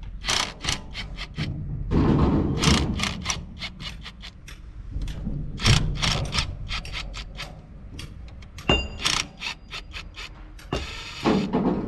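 Cordless power driver running in short bursts on the cylinder head of an excavator's diesel engine, with irregular metal clinks and knocks of tools on the engine parts. The longest and loudest burst comes near the end.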